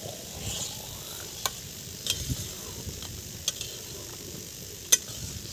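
Steel spatula stirring shavige payasa in a steel pot over a wood fire: soft scraping over a faint hiss, broken by a few sharp clicks of metal on the pot, the loudest near the end.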